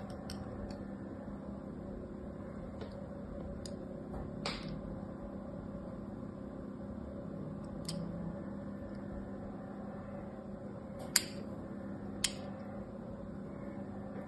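A thin blade scoring lines into a dry bar of soap, giving several sharp, crisp clicks, the loudest about eleven seconds in, over a steady low hum.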